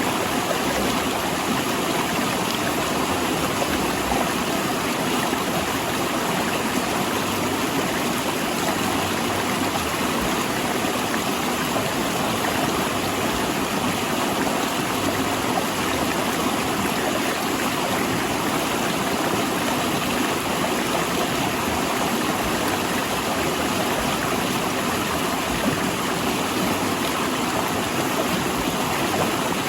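Fast river rushing over and between large rocks: a steady, even rush of water.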